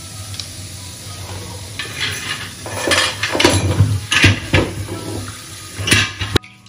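Kitchen tap running into a steel sink while a stove grate and dishes are handled and scrubbed under it, with repeated clattering knocks of metal and plastic. The sound cuts off suddenly near the end.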